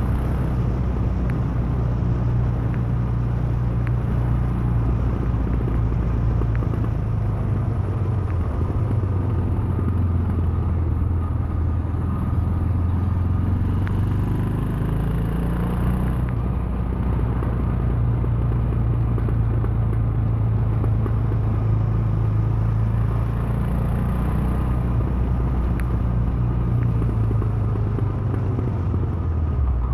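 Royal Enfield Himalayan's 411 cc single-cylinder engine running on the move, a steady low rumble whose pitch shifts up and down several times as the speed changes.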